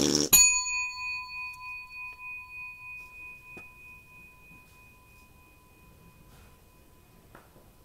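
A single struck bell-like chime: one strike that rings with several tones at once and dies away slowly, pulsing as it fades over about four seconds.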